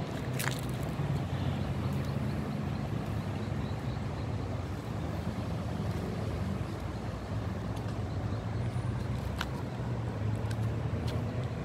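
A steady low engine hum, with a sharp click about half a second in and two more near the end.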